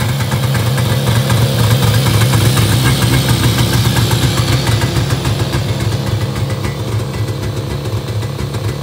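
1976 Yamaha GS340 snowmobile's two-stroke engine idling steadily with a fast, even firing beat, picking up slightly about two seconds in and settling back a little after about six seconds.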